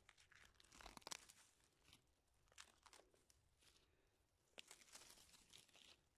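Rotten log bark being pulled and torn away by hand, with faint crackling and crunching of the decayed wood in three short clusters.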